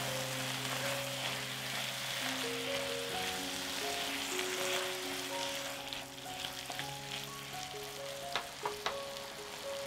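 Food sizzling steadily as it fries in oil in a pan, with a few light clicks near the end. Soft background music plays underneath.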